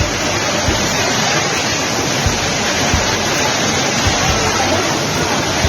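Floodwater rushing in a loud, steady torrent, with occasional low thumps.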